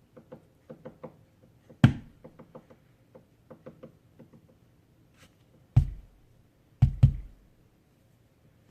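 Woodpecker pecking at the wooden siding and trim of a house, in uneven runs of light taps several a second: the bird is tearing up the corner of the house. Three much louder knocks stand out, about two seconds in and again near six and seven seconds.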